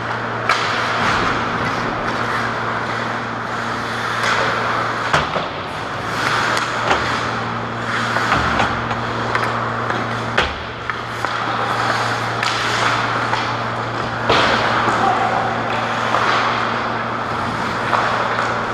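Ice hockey play near the net: skates scraping on the ice, with sharp clacks of sticks, puck and boards every few seconds over a steady low hum.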